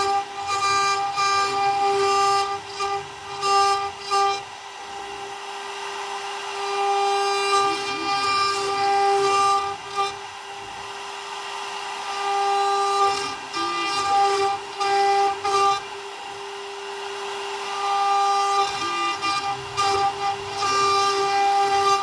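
A CNC router's spindle whines steadily while a 32 mm 60-degree V-carving bit cuts fine detail into a wood panel. The cutting noise swells and eases off several times, dropping for a couple of seconds about five, eleven and sixteen seconds in.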